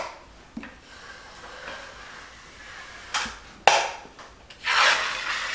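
Metal drywall taping knife working joint compound against a mud pan and the corner bead: two sharp metal clicks a little past three seconds in, then a longer scrape near the end.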